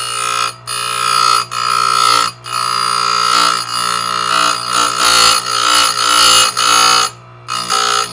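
Electric chainsaw sharpener's grinding wheel grinding saw-chain teeth: a loud, shrill grinding with a ringing tone, in long passes broken by short pauses between teeth, over the motor's steady hum.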